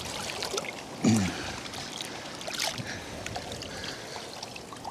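Lake water lapping and sloshing in small waves around a man wading in the shallows with a large carp held in the water. A brief grunt from him about a second in.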